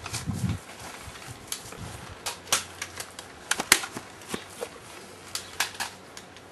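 A series of irregular sharp clicks and knocks, about a dozen, the loudest a little past the middle.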